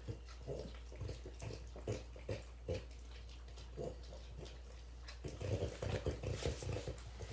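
Two French bulldogs licking sticky peanut butter off metal spoons: wet, smacking licks at first spaced out, then coming quickly and close together from about five seconds in.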